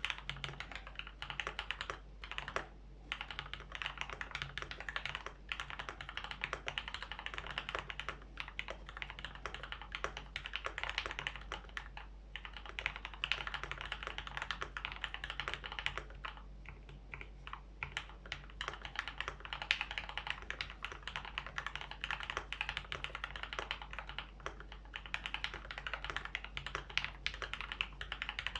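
Typing on a KBD75v2 mechanical keyboard with an aluminium plate and lubed Gateron Black Ink linear switches: a fast, irregular run of keystrokes with a few short pauses.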